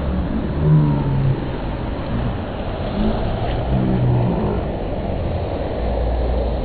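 Wave pool water churning and breaking in a steady rush, with a low rumble underneath.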